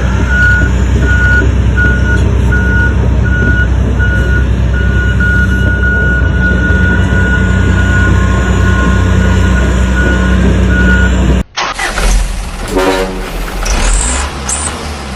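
Truck engine sound running steadily under a reversing beeper beeping about twice a second, from the RC dump truck. About three-quarters of the way through, the sound cuts off abruptly and gives way to a different, uneven engine sound.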